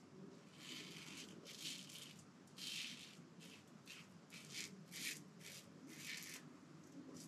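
Faint wet-shaving strokes on the face: short scratchy strokes, about two a second and unevenly spaced.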